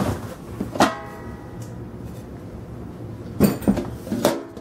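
Metal pots and pans clanking against each other in a cardboard box. A sharp clank about a second in leaves a metallic ring for about a second, and a few more knocks and a shorter ring follow near the end.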